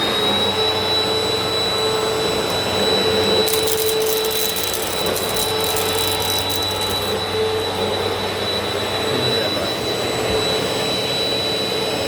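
WAP Power Speed 2000 W upright vacuum cleaner running at full suction on a hard floor: a steady whining rush with a high whistle. For a few seconds in the middle there is a crackle of grit and dirt being sucked up.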